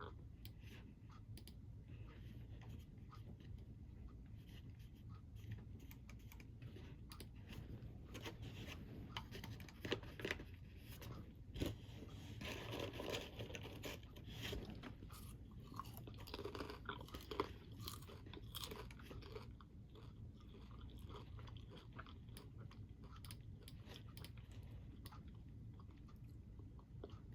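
A person chewing a crunchy snack: a run of quiet crunches and bites, coming thicker and louder in the middle stretch.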